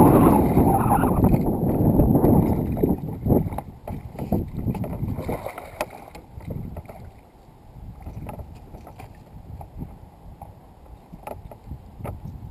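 Loud water splashing for about the first three seconds as a hooked fish thrashes beside a small boat, then quieter water lapping with small clicks and knocks as the fish is lifted out.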